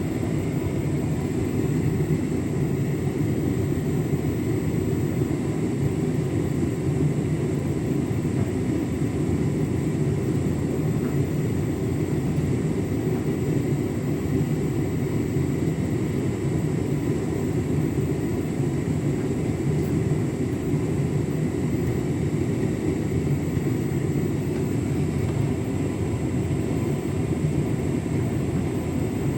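Beko WTK104121W front-loading washing machine running a hot drum-clean cycle in its distribution phase: the drum turns a little faster than the wash tumble, with water swishing inside, making a steady, even hum without breaks.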